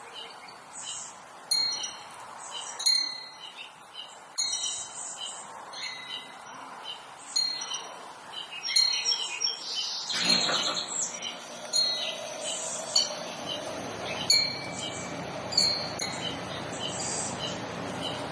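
Small birds chirping, many short high-pitched calls and notes through the whole stretch. About ten seconds in, a steady rushing noise comes up underneath and stays.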